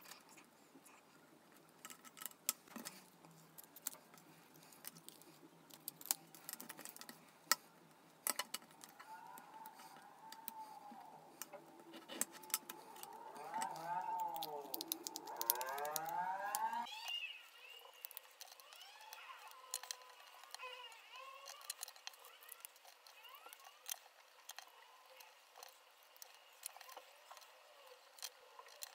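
Light clicks and taps of wooden ice-cream sticks being marked with a pencil and cut with scissors. A wailing tone rises and falls through the middle, loudest just before it breaks off a little past halfway.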